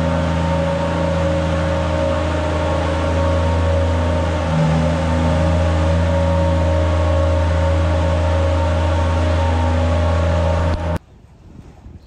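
Feed wagon unloading silage, its engine and discharge machinery running with a steady, loud drone; it cuts off abruptly near the end.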